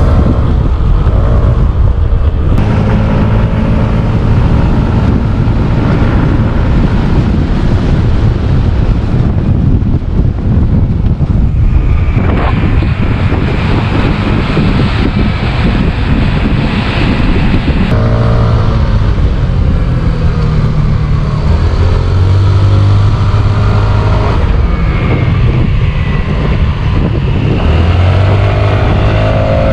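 Motor scooter engine running under way, with heavy wind rush on the microphone; the engine note rises and falls several times as the speed changes.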